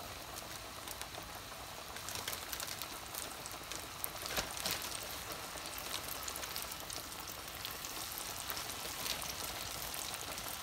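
Floured flounder pieces deep-frying in a pot of hot oil: a steady crackling sizzle with many small pops, a little louder from about two seconds in.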